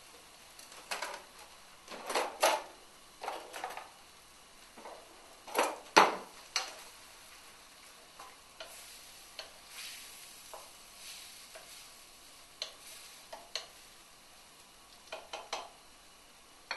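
Wooden spatula stirring chicken and tomato pieces in a frying pan, in irregular scraping and knocking strokes, the loudest about six seconds in, with the food sizzling lightly between strokes.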